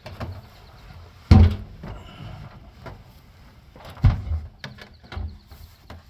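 Dull thumps and knocks of hand work on parts under a vehicle: a loud thump about a second in, another about four seconds in, and smaller knocks between.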